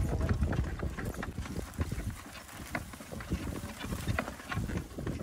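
Hoofbeats of a horse pulling a two-wheeled driving cart across a field: a run of irregular thuds and clicks.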